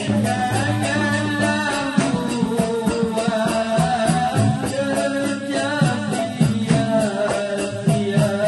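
Dikir barat troupe singing together in long held chanted lines over a steady, fast beat of rebana hand drums, with rattles and clapping.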